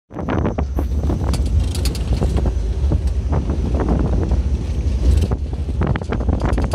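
A vehicle driving over a rough dirt road: a steady low rumble with wind buffeting the microphone, and frequent knocks and rattles from the bumpy surface.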